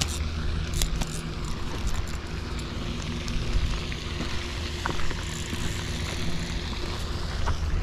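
A motor humming steadily over a steady hiss, with a couple of faint clicks.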